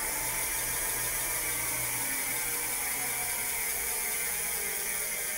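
An electric bike's rear hub motor spinning the raised rear wheel under pedal assist, a steady mechanical whir.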